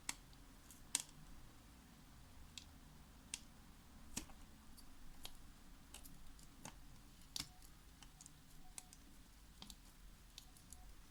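Faint, irregular small clicks and taps from the plastic parts and screws of a disassembled computer keyboard being handled during reassembly.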